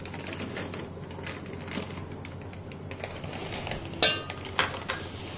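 Split moong dal poured from a small glass bowl into a steel pot, a faint patter of grains, then a sharp ringing clink against the steel pot about four seconds in, followed by two lighter knocks.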